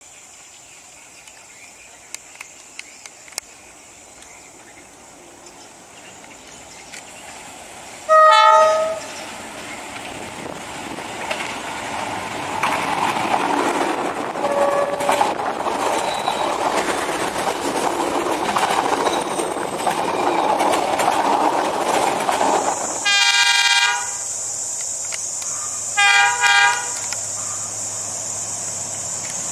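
Diesel locomotive horn and a passing train. A short, loud multi-tone horn blast comes about eight seconds in, then the rush and rumble of a train going by builds for several seconds. Two more horn blasts follow near the end, a longer one and then a shorter one, before the locomotive's engine settles to a steady hum.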